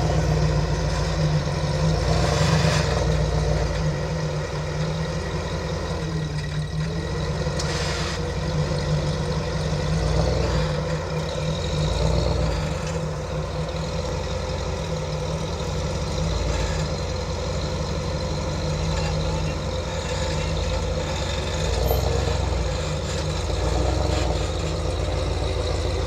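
Motor vehicle driving along a dirt trail: a steady low engine drone with noise from the tyres and terrain, the loudness rising and falling a little.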